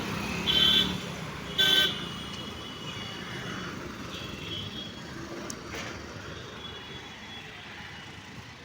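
Road traffic with two short vehicle horn toots in the first two seconds, then steady traffic noise that slowly fades.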